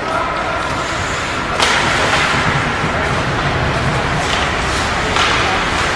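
Ice hockey play: steady rink noise of skates and play on the ice, with a sharp knock about a second and a half in and a couple of lighter knocks later.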